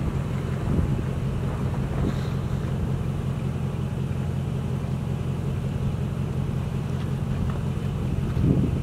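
An idling engine: a steady low hum that holds even throughout.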